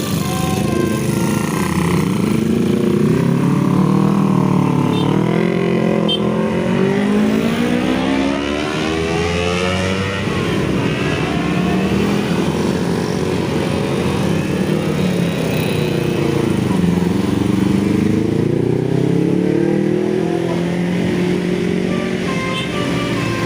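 Road traffic passing, with engines revving up through the gears. Their pitch climbs for several seconds, drops, then climbs and falls again.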